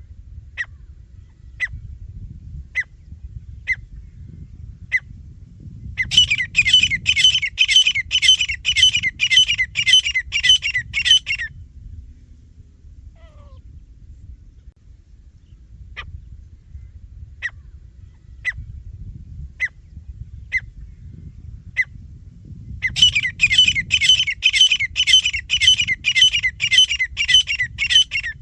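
Teetar (francolin) calling. Single sharp notes come about once a second and twice break into a fast run of repeated ringing notes, each run lasting about five seconds, over a low background rumble.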